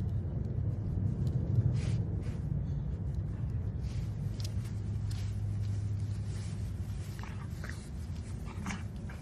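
A low steady rumble under short scattered rustles and snuffles as a dachshund puppy rolls and wriggles on its back in grass.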